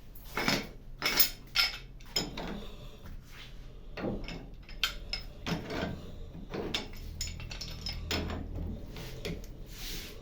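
Metal tools and parts being handled: a string of irregular clinks and knocks, the loudest few in the first two seconds, over a faint low hum.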